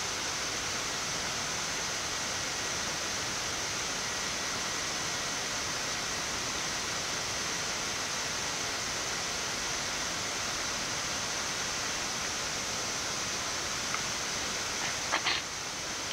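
Steady hiss of airflow and ventilation on a Boeing 787 Dreamliner's flight deck in flight, with a thin high steady whine over it. A brief voice-like sound comes near the end.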